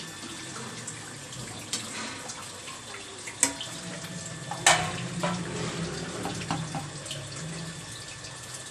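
Chana dal simmering in an aluminium pot on a gas stove, a steady bubbling hiss, as a spatula stirs it. The spatula knocks sharply against the pot twice, about three and a half and five seconds in.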